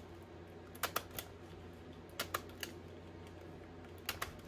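Light clicks and taps of paper and craft tools being handled on a work table, coming in three small clusters of two or three clicks each.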